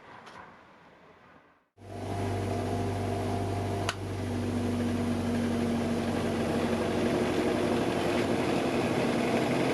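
Titan 200mm bench grinder's motor and wheels running steadily at speed with a steady low hum. It comes in abruptly about two seconds in, with one sharp click about four seconds in. The right-hand wheel is being test-run after its flange was turned a quarter inch to balance it; it runs a little better, though not yet free of vibration.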